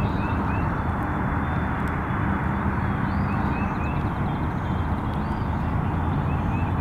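A steady low rumble of distant engine noise, with a few faint short chirping calls over it, about a second in and again about three seconds in.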